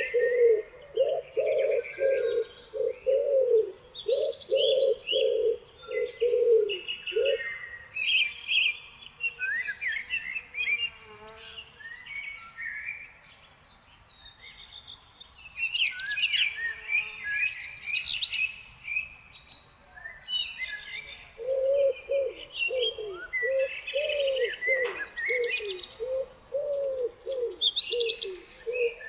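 Morning birdsong chorus: several songbirds chirping and warbling in short high phrases throughout. A low cooing note repeats about twice a second for the first seven seconds, then again from about 21 seconds in.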